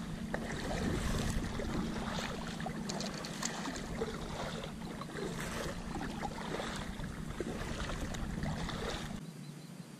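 Kayak paddling: water splashing and dripping from the paddle blades and lapping against the hull in many small irregular splashes, over a low rumble. The sound drops away sharply about nine seconds in.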